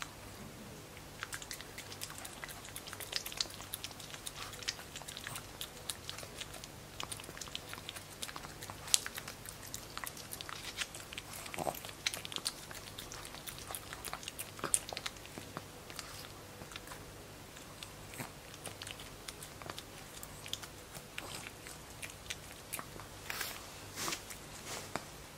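Pekingese puppy licking and smacking at a puree treat squeezed from a tube: a quick irregular run of small wet tongue clicks and lip-smacks.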